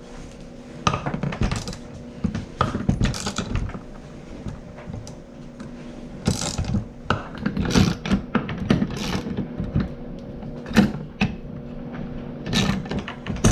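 Irregular metallic clicks, clanks and knocks of hand tools working a Kawasaki KX65 engine's crankcase halves apart with a case puller, until the cases break loose.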